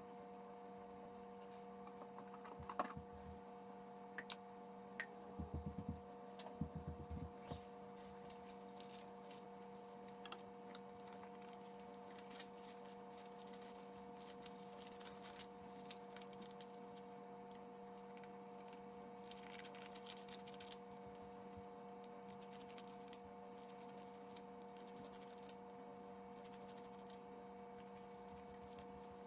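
Junk-mail paper being handled: envelopes and pages rustling and crinkling in short bursts, then cut into scraps with scissors, with small snips and clicks near the end. A steady low hum runs underneath.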